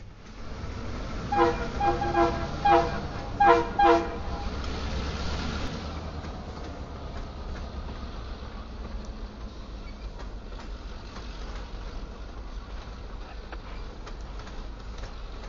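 Locomotive horn on an EMD GP38-2 diesel sounding a rapid series of short chord blasts about a second in, lasting about three seconds. After it comes the steady low rumble and wheel clicks of the freight train rolling past.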